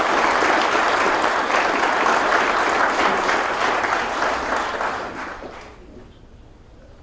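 An audience applauding, dense clapping that dies away about five to six seconds in.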